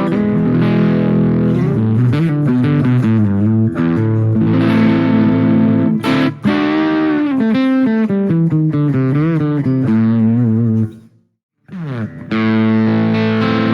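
Harley Benton ST80 FR HH electric guitar played through high-gain distortion: quick runs and held notes with wide wavering vibrato. It breaks off briefly about eleven seconds in, then comes back on a held chord.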